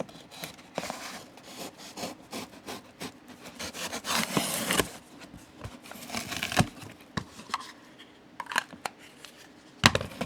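Hands going through a box of tools: packaging rustles, with scattered clicks and knocks as items are handled and set down. The longest rustle comes around the middle.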